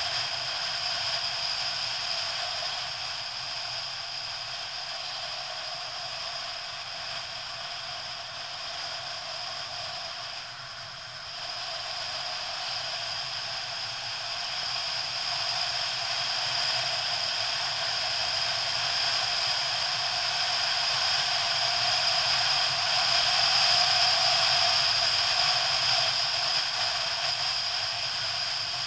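Steady rush of wind and motorcycle engine noise picked up by a camera riding on the moving motorcycle. It dips briefly about eleven seconds in and grows louder in the second half.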